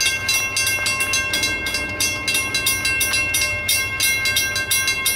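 Railroad grade-crossing warning bell ringing rapidly, about four or five strikes a second over a steady ringing tone. The strikes stop abruptly about five seconds in.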